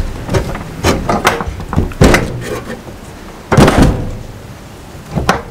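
Metal knocks and rattles from a thin brake hard line being slipped under a sheet-metal floor panel on a car frame: several sharp knocks, the loudest a clank with a short ring about two-thirds of the way through.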